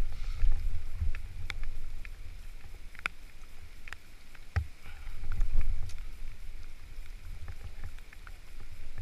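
Uneven low rumble of wind and movement on the microphone, with scattered sharp clicks at irregular intervals.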